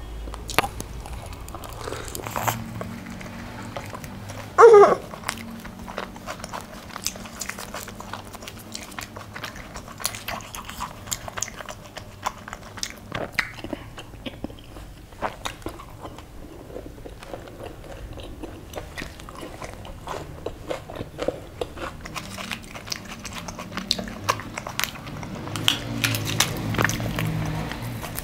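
Close-miked chewing, biting and wet mouth sounds of a person eating chole bhature, with many small crisp clicks. About five seconds in there is a short, loud squeak that falls in pitch.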